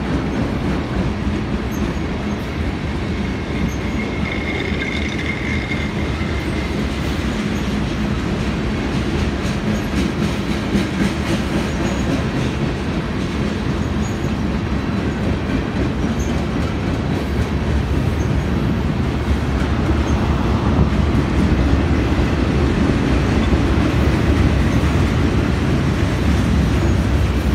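Freight train boxcars and refrigerator cars rolling past: a steady rumble of steel wheels on rail with repeated knocks, and a brief high squeal about four seconds in.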